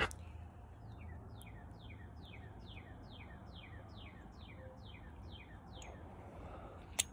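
A bird calling a steady series of short falling chirps, about three a second, for about five seconds. A single sharp click near the end.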